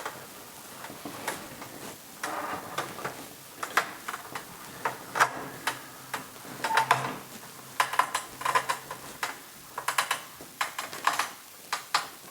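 Drywall panel hoist being cranked up: irregular clicking and knocking from its winch ratchet and metal frame, some clicks coming in quick runs.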